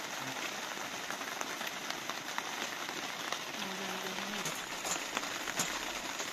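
Steady rain pattering, a dense hiss of fine drips and ticks. About four seconds in there is a brief low hum of a voice.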